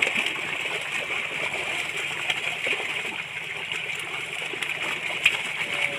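Pangasius catfish packed into a drawn-in seine net thrashing at the water's surface: a continuous churning splash made of many small splashes, with one sharper splash about five seconds in.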